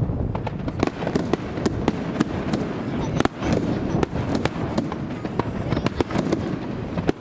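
Fireworks display: many sharp bangs and crackles at an irregular pace, several a second, over a steady low rumble of wind buffeting the microphone.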